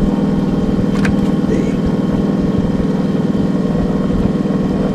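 Small boat's engine idling steadily with an even drone, and a single sharp click about a second in.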